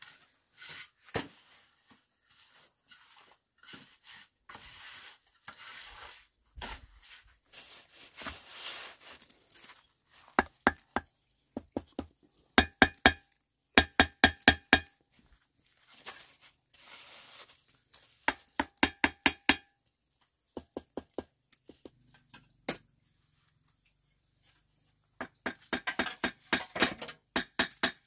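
Mason's trowel tapping bricks down into wet cement mortar: runs of quick, sharp ringing taps, about four or five a second, between stretches of soft scraping as mortar is spread.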